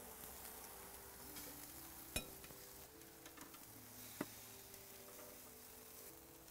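Faint sizzling of salmon and king oyster mushrooms grilling over charcoal on a Big Green Egg's grate. Tongs click sharply twice, about two seconds in and again about four seconds in, as the mushrooms are lifted off.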